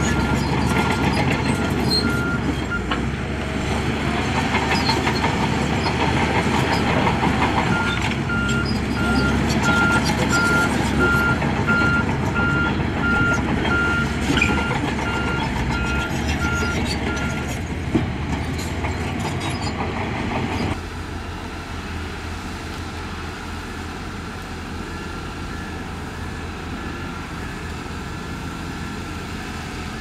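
Diesel engines of heavy earthmoving machines running, with a reversing alarm beeping steadily in two runs separated by a pause of several seconds, and a single sharp knock a little past halfway. The sound then drops suddenly to a quieter engine, and a higher-pitched backup alarm starts beeping near the end.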